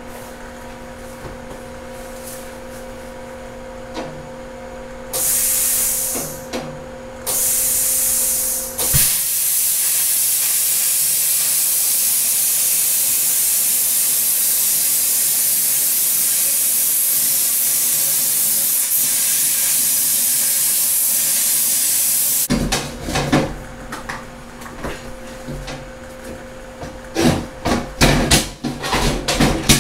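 Plasma cutter cutting aluminum sheet. Two short blasts of air hiss come first, then a steady hiss of about thirteen seconds as the torch runs the cut. Clanks and knocks of the metal being handled follow near the end.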